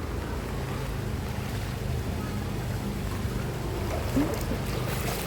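Steady rush of floodwater with wind buffeting the microphone, and a short rising sound about four seconds in.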